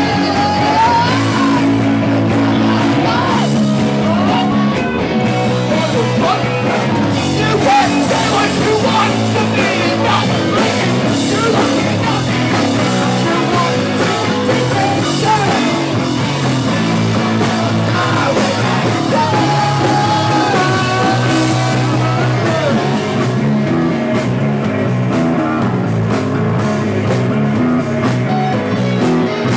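Live rock band playing loud and steady, electric guitar and full band with singing at times.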